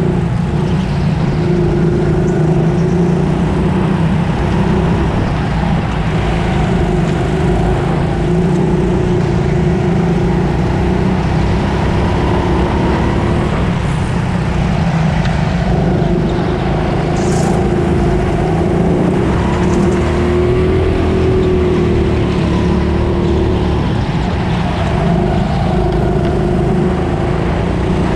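Rental go-kart engine heard from on board during a race, running hard with its pitch rising and falling as the throttle comes on and off through the corners.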